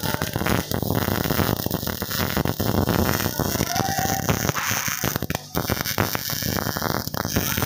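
MIG welding arc crackling steadily as a bead is laid along steel tubing, with a brief break in the arc about five and a half seconds in.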